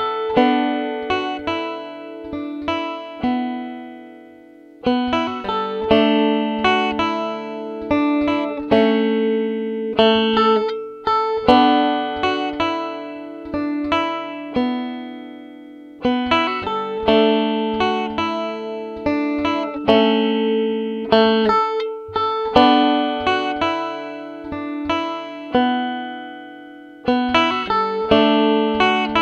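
Solo five-string banjo picked slowly with fingerpicks, playing a vocal melody line as single plucked notes in short phrases. Between phrases the notes ring and die away.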